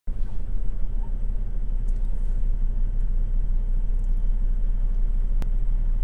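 Steady low rumble of a semi truck's diesel engine and drivetrain heard inside the cab, with a single sharp click near the end.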